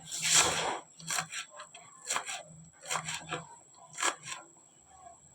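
Kitchen knife cutting scallions on a cutting board: a scrape at the start, then single chopping strokes roughly once a second.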